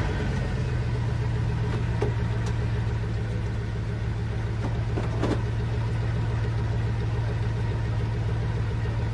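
Bugatti Veyron Grand Sport's quad-turbocharged W16 engine idling steadily with a deep, even hum. A couple of faint clicks come over it.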